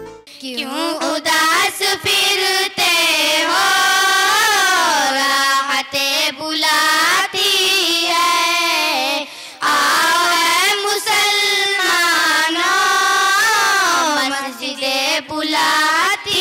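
A child's voice singing an Urdu nazm in long, ornamented melodic lines that waver and slide in pitch, pausing briefly for breath every three or four seconds.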